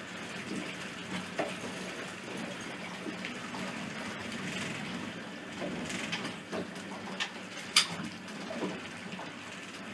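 Water sloshing and gushing against a boat's hull, over a steady low hum from the boat's motor. Scattered knocks, the sharpest about eight seconds in.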